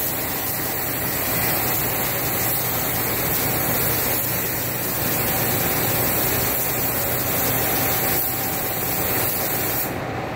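Gravity-feed automotive spray gun hissing steadily with compressed air as it sprays clear coat onto a car bumper, with a steady low hum underneath; the spray breaks off briefly near the end.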